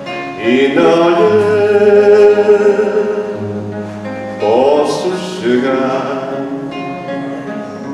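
A man singing, accompanied by his own nylon-string classical guitar. He sings two long, held phrases, the first starting about half a second in and the second about four and a half seconds in.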